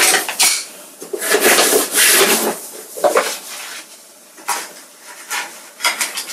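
Small metal medals clinking and rattling against each other as they are handled, in irregular bunches of clicks with short pauses between.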